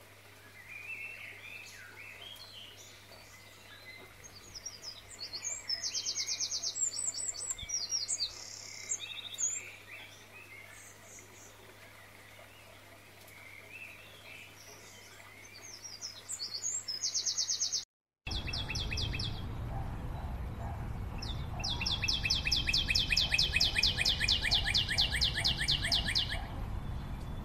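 Songbirds chirping, with short high trills scattered through the first part. After a brief break in the sound, a louder fast trill of rapid repeated notes runs for about five seconds near the end.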